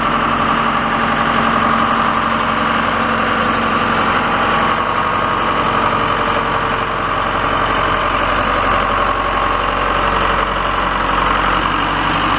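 Backhoe engine idling steadily while it warms up.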